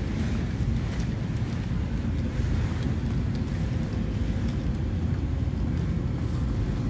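Ferry's engines running, a steady low rumble heard from inside the passenger cabin, with a faint steady hum over it.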